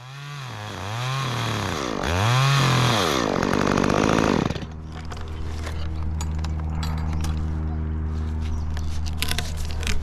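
Chainsaw engine revved up and down a few times, held at high revs briefly, then dropping at about four and a half seconds to a steady idle.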